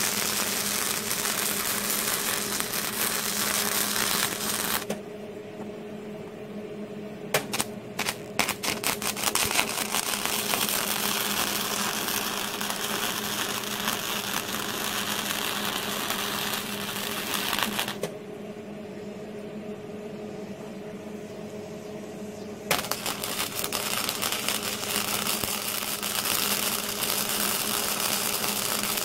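Flux-core wire-feed welding arc from a Hobart Handler 120 MIG welder, crackling steadily. It stops about five seconds in, comes back in a few short stuttering bursts that settle into a longer steady run, pauses again for several seconds, and then runs on near the end. A low steady hum shows through the pauses.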